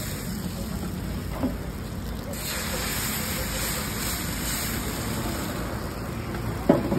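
Steady hiss of chakuli batter sizzling on a hot iron griddle, with a small click about a second and a half in and a metal clink near the end.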